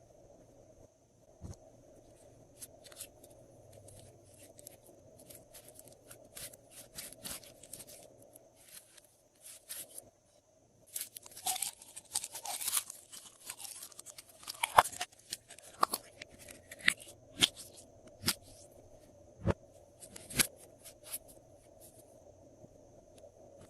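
Hands pressing and stretching glossy slime: sticky clicks and pops, with a dense spell of crackling about halfway through and a few sharper single pops after it.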